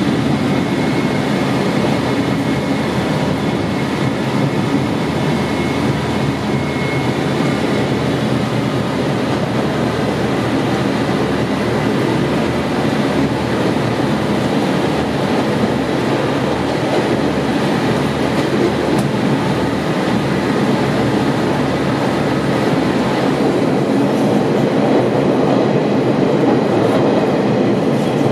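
KiHa 40 diesel railcar running along the line: its diesel engine and wheels on the rails make a steady rumble, getting a little louder near the end.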